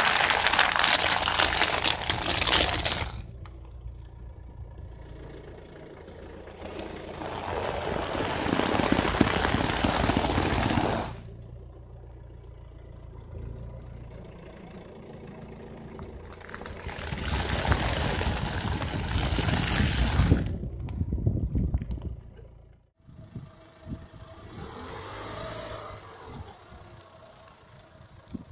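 A car's tyre rolling over and crushing objects on asphalt, with crunching and crackling, in three loud passes a few seconds each separated by quieter stretches.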